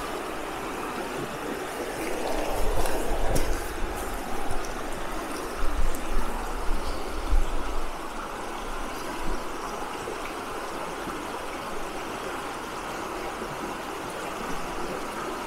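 Conejos River rushing steadily over cobbles and boulders in shallow riffles, with a few low rumbles in the first half.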